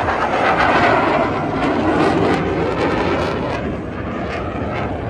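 Loud roar of a military jet aircraft flying past, its pitch sliding lower as it goes by.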